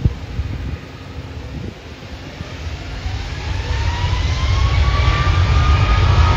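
Boeing 777-200's twin jet engines spooling up at the start of a takeoff roll: a low rumble that grows steadily louder, with a whine rising in pitch from about three seconds in. A short thump at the very start.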